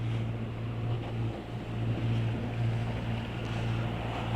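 A sailboat's auxiliary engine running steadily, with wind and water noise.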